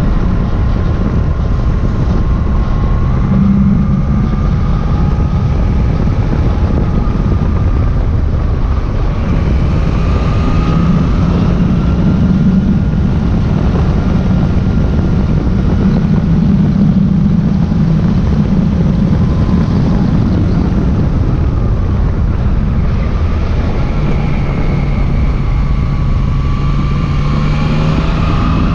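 Yamaha Tracer motorcycle engine running on the move, its pitch slowly rising and falling as the revs change and climbing near the end, over steady wind rush on the microphone.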